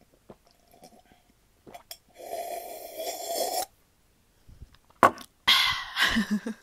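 A woman's breathing and vocal sounds right after a drink: small swallowing clicks, then a long noisy breath out lasting over a second. About five seconds in comes a sudden sharp burst, followed by a short voiced sound.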